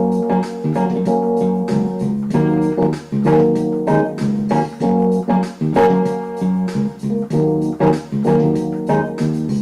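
Instrumental background music with plucked guitar-like notes and a keyboard or organ underneath.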